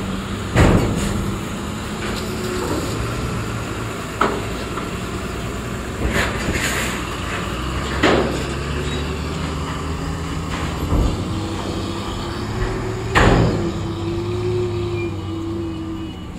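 Heavily loaded Tata trucks' diesel engines running as they drive off a ferry over the steel loading ramp, with about six loud clanks and bangs a few seconds apart as the wheels cross the metal ramp plates; the loudest come about half a second in and near the end.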